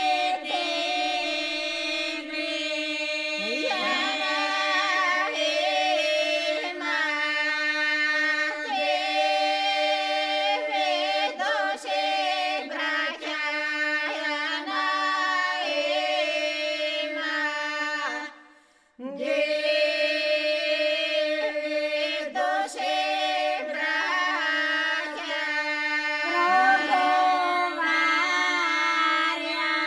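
A Bulgarian village folk group singing unaccompanied in several voices, one voice holding a steady drone under the moving melody. The singing breaks off briefly about two-thirds of the way through, then resumes.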